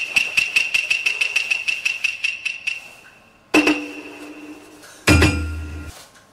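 A desk bell dinged rapidly, about seven strikes a second, each with the same clear metallic ring, stopping near the three-second mark. Then come two sharp hits with ringing tails, about 3.5 and 5 seconds in, the second with a deep booming part.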